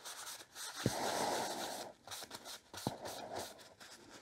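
Rag wiping wood stain off a wooden board: dull cloth-on-wood rubbing in strokes. Each stroke starts with a light knock, about a second in and again near three seconds.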